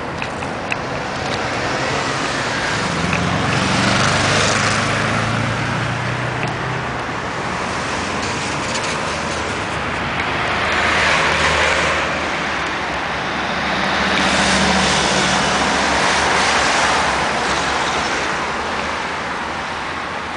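Road traffic at a junction: cars and a van passing close by one after another, their engine hum and tyre noise swelling and fading three times.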